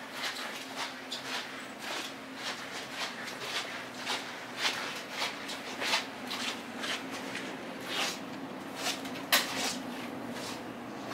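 Footsteps and shuffling, short irregular knocks about two or three a second, over a steady low hum.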